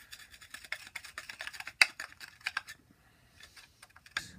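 A bong bowl being worked over the centre pin of a Debowler ash-catcher to clear it out: a quick run of small clicks and scrapes, with one sharp click a little under two seconds in. Fainter scraping follows, then a last click near the end.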